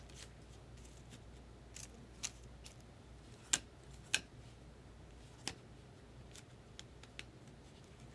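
Baseball trading cards being handled: a scatter of light, sharp clicks and snaps, about eight in all, the sharpest about three and a half seconds in.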